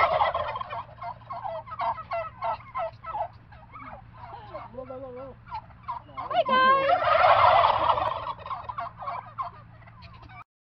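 A flock of domestic turkey toms gobbling: a loud burst of gobbling from many birds at the start and another about seven seconds in, with scattered single calls between. The sound cuts off suddenly near the end.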